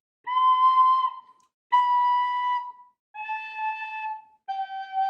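Soprano recorder playing four separate held notes, each about a second long, stepping down in turn: C, B, A, G (Dó, Si, Lá, Sol).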